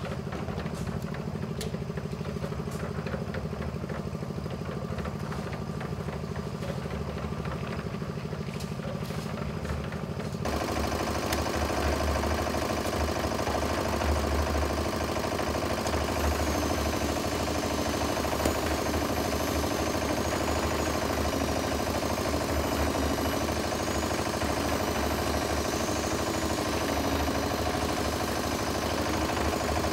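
Diesel engine of a cement mixer running steadily as it drives the mixing drum. The sound grows louder and more rumbling about ten seconds in.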